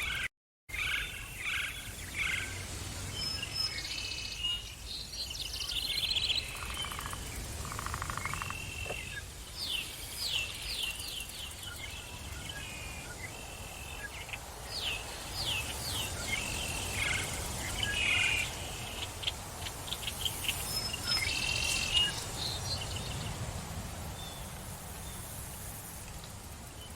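Forest birds chirping and calling, including quick runs of short falling notes, over a low steady background rumble. The sound cuts out completely for a split second just after the start.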